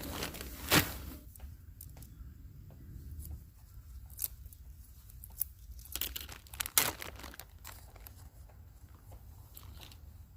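Plastic food packaging crinkling and tearing as it is handled, with a few sharp clicks and knocks, the loudest just under a second in.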